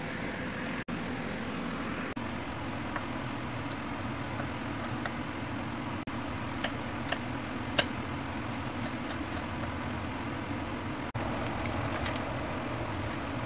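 Steady low background hum with a few light clicks and taps, most of them in the middle of the stretch, from ingredients and plastic packaging being handled on a plastic cutting board.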